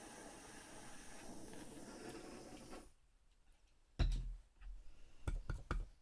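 Jeweller's torch flame hissing steadily, shut off abruptly about three seconds in. About a second later a loud thump, then a run of sharp clicks and knocks as the solder-covered piece is handled and prodded.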